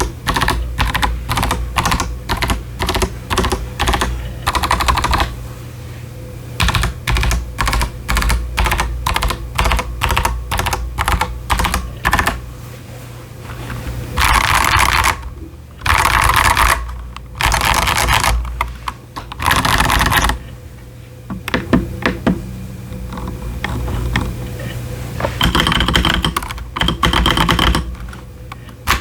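Typing on an Akko 5075s mechanical keyboard with stock Akko Jelly Purple tactile switches and ASA-profile doubleshot PBT keycaps: a steady run of keystrokes, broken around the middle by a few dense bursts of fast keypresses, each about a second long.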